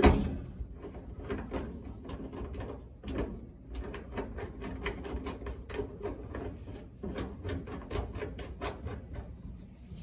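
Hand rivet-nut tool setting a threaded insert in a drilled hole in sheet-metal floor pan: a sharp knock at the start, then a run of small irregular metal clicks and creaks, several a second, as the tool is turned and worked.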